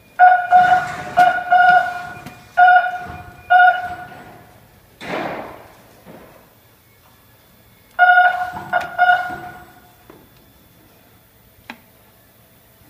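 Metal struck repeatedly, each knock ringing briefly at the same pitch: about six knocks in the first few seconds, a short whoosh in the middle, then a quick cluster of four more knocks.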